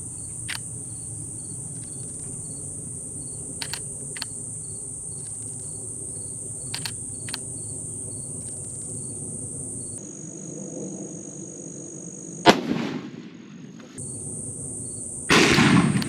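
Steady high-pitched drone of crickets and other insects with a few faint ticks; about twelve seconds in, a single sharp rifle shot with a short rumbling tail, and near the end another loud, longer bang.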